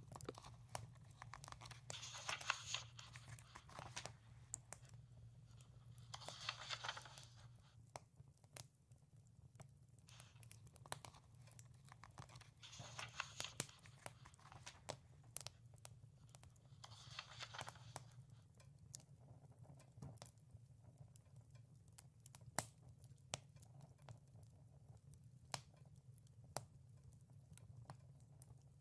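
Quiet wood fire crackling with scattered sharp pops, and the pages of a book turned four times, each a papery swish a second or two long, spaced a few seconds apart in the first two-thirds. A steady low hum runs underneath.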